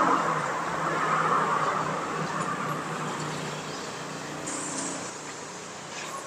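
A road vehicle's engine passing and fading away over a few seconds, over steady roadside traffic noise.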